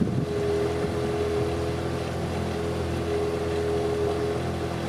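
Motorboat engine running at a steady, unchanging pitch, a constant drone with a low hum.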